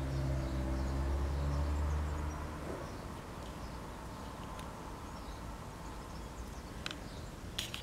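A low steady mechanical hum fades out about three seconds in. After it, faint outdoor background with scattered faint chirps, and a few sharp clicks near the end.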